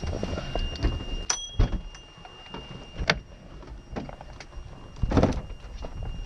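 Sharp clicks and knocks of a helicopter's cabin door and fittings as the occupants climb out, the loudest about five seconds in, over a faint steady high tone.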